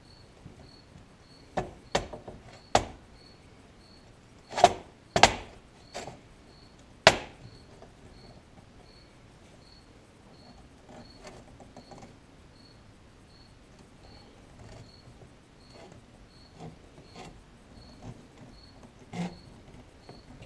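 Sharp clacks and knocks of a clamp being handled and fitted around a hunting knife's rubber handle during an epoxy glue-up, several loud ones between about two and seven seconds in and scattered lighter ones later. A faint high tick repeats about twice a second throughout.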